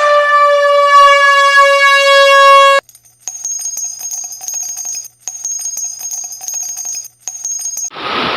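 A single bell-like electronic tone, held for nearly three seconds and cut off sharply, followed by a run of fast, high-pitched electronic beeps and clicks in three stretches with short breaks; near the end the steady rush of river water starts.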